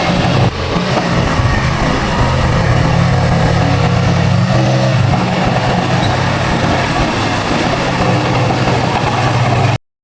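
Diesel engine of heavy earthmoving machinery running steadily under load, with a brief dip about half a second in. It cuts off abruptly near the end.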